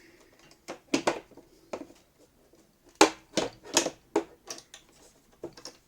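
Hard plastic parts of a vacuum cleaner's housing knocking and clicking as a part is fitted into place: a string of sharp clicks, the loudest about three seconds in.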